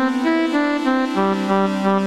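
Synthmagic/Tronsonic J4 sample library of a Roland Jupiter-4 synthesizer playing a demo phrase: short notes moving over held chords, with a new, lower bass note entering about halfway through.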